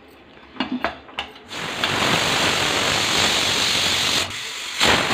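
A few sharp metal clicks from the whistle weight being set on the vent of an aluminium pressure cooker. About a second and a half in, a loud, steady hiss of steam escaping from the cooker begins; it drops briefly near the end and then returns.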